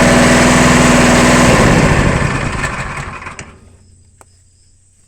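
Small gas engine driving a baler's hydraulic pump runs steadily, then is shut off about a second and a half in and winds down to a stop over the next two seconds. Faint cricket chirping is left behind it.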